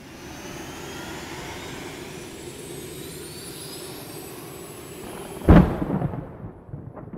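Cinematic title sound effect: a rushing riser with faint rising tones swells for about five seconds, then a heavy boom hits about five and a half seconds in and dies away, followed by a couple of smaller hits near the end.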